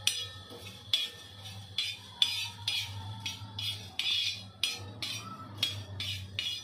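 Small steel spoon scraping and stirring whole spices, coriander seeds and cloves, across a dry iron tawa: quick scrapes with rattling seeds, about two or three strokes a second. The spices are being dry-roasted until they smell fragrant.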